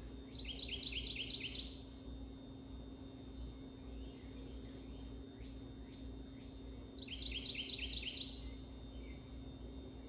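A songbird singing two rapid trills, each a quick run of about eight falling notes lasting just over a second, about six seconds apart. Fainter chirps and a steady low hum lie underneath.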